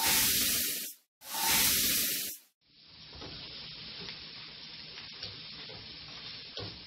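Two loud bursts of noise, each about a second long, from an editing transition effect. Then tlacoyos sizzling steadily on a stovetop griddle, with a few light clicks of a spatula turning them.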